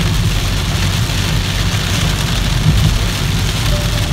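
Rain hitting a car's windscreen, over a steady low rumble of tyres on a wet road and engine from inside the moving car.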